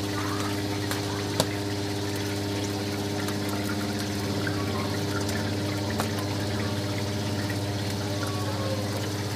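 Automatic oil-pouring chicken fryer running: its oil pump hums steadily while hot oil pours down over the chicken. A sharp click comes about a second and a half in.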